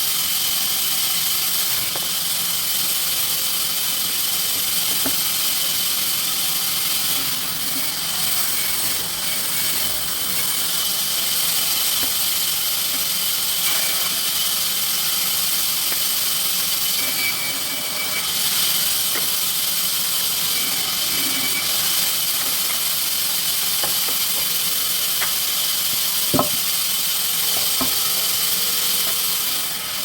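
Sawmill machinery running steadily: an even high hiss with a few steady whining tones and light ticks, and a single sharp knock near the end.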